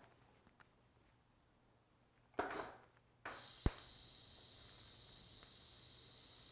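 TIG welding arc tack-welding a V-band flange onto an exhaust header: after a short noise about two and a half seconds in, the arc strikes with a sharp click and then holds a steady, faint high-pitched hiss.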